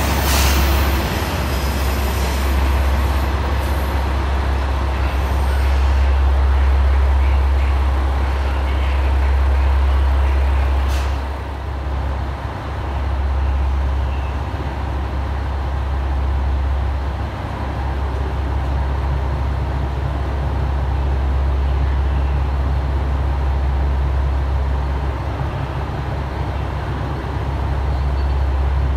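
JR Shikoku 1000 series diesel railcar standing at the platform with its engine idling, a steady low hum. At the start another diesel railcar's running noise fades as it pulls away, and there is a single sharp click about eleven seconds in.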